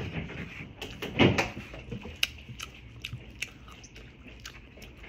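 Eating sounds at a meal: chewing, with scattered small sharp clicks and taps and a louder short noise about a second in.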